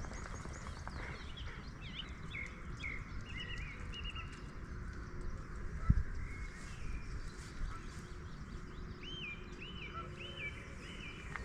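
Birds calling outdoors, many short chirps that rise and fall, with one bird repeating the same call about twice a second near the end. Under them runs a steady low rumble, and one short dull knock comes about six seconds in.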